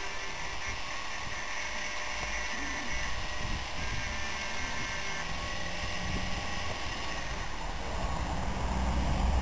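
Steady outdoor background noise, a low rumble under a hiss, growing louder near the end.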